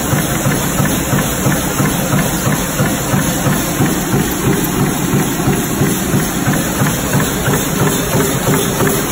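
High-speed stamping press running and punching brass strip into plug terminal pins, a loud, even stream of rapid strokes.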